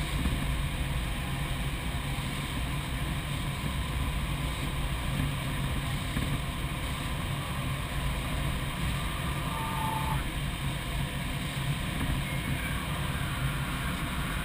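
Steady rush of airflow over the canopy of a Single Astir 77 glider in flight, with a low hum and no engine.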